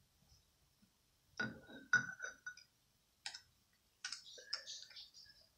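Metal razor clicking and clinking against a ceramic bowl several times, a few of the knocks leaving a brief ring, as it is dipped and knocked clean.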